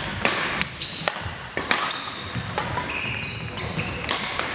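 Badminton doubles rally in a large gym: sharp racket hits on the shuttlecock and quick footsteps, with short high squeaks of sneakers on the hardwood floor.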